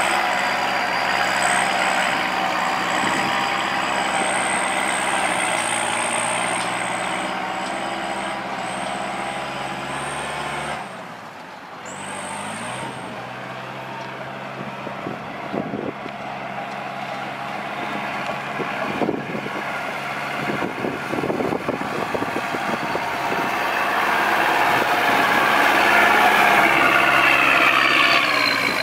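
Kubota tractor diesel engine running steadily under load, pulling a disc harrow through wet mud. The sound drops briefly about eleven seconds in, there are scattered knocks in the middle, and the engine grows louder near the end.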